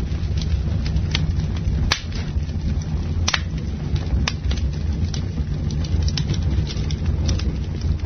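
Wood campfire crackling, with a handful of sharp louder pops among many small crackles over a steady low rumble.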